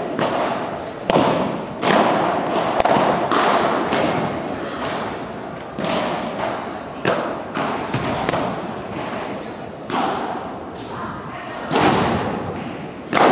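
Padel rally: sharp pops of the ball off solid padel rackets, the glass walls and the court, about every half-second to second over the first five seconds, then a few scattered knocks. Each hit echoes in the large hall.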